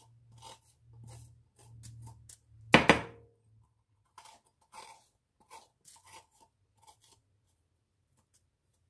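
A spoon scraping out the inside of a raw green bell pepper: a string of short crunching, tearing scrapes, the loudest about three seconds in, growing sparser toward the end.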